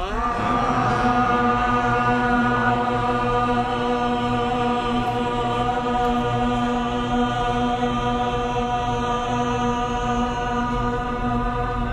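A group of people chanting the Sikh word 'Akal' together, loud, drawn out into one long held note that rises slightly in pitch at the start and then holds steady.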